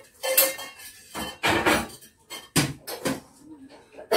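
Dishes and cutlery clattering and clinking at a kitchen sink, in several short separate bursts.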